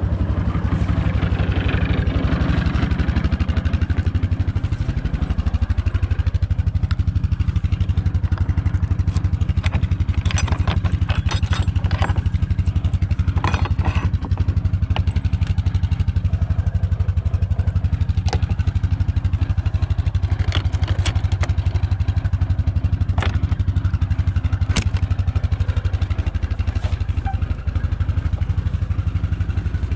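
ATV engine running steadily as the quad is ridden, with a brief change in pitch about five seconds in. Several sharp knocks and rattles come between about ten and fifteen seconds in.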